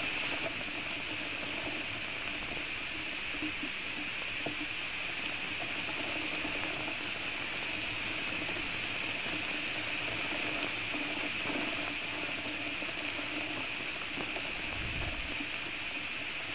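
Steady rain falling on the forest and nest, heard as an even hiss through the nest webcam's microphone. A brief low rumble comes about fifteen seconds in.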